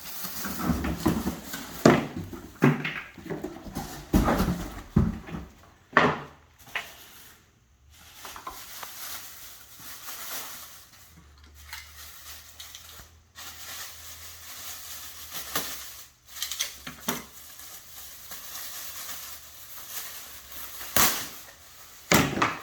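Irregular knocks, clatters and rustling as a large 3D printer and its packaging are handled during unboxing. The knocks are heaviest in the first few seconds and again near the end, with quieter rustling between.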